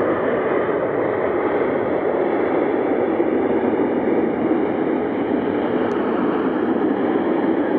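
Steady jet engine noise from a Boeing 777 airliner rolling out along the runway after landing.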